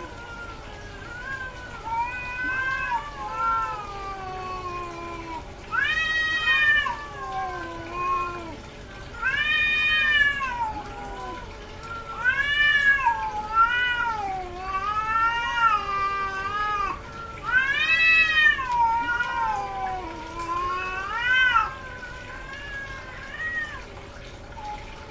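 Female cat in heat yowling: a continuous run of long, wavering meows that each rise and then fall in pitch, some quieter and several much louder, with the loudest calls in the middle and latter part.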